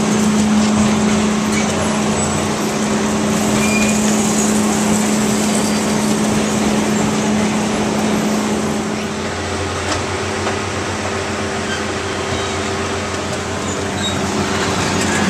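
Rock-N-Roll carnival ride running: a steady mechanical hum over a dense wash of noise. A little past halfway the hum shifts to a lower pitch.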